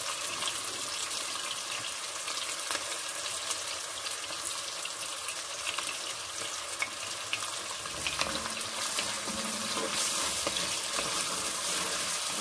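Chopped onions sizzling in hot oil in a pan, a steady hiss with small crackles, as they fry to brown.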